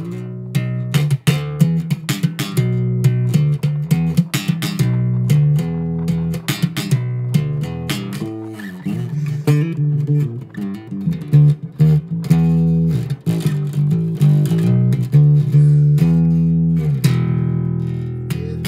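Background music of plucked guitar over a bass line, with a quick run of picked notes.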